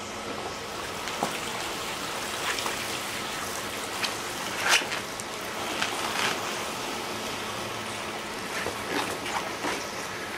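Blue plastic bubble solar pool cover being dragged and lifted off the water: irregular crinkly rustling of the plastic sheet with water sloshing and trickling off it, over a steady hiss.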